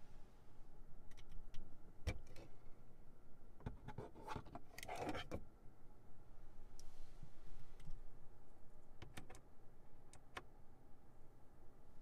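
Scattered sharp clicks and a short clattering rustle a few seconds in, from the overhead console's controls and trim being handled in a quiet car cabin.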